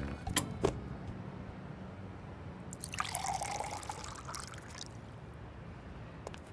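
Milk pouring from a tap into a mug for about two seconds midway, with a couple of short clicks in the first second.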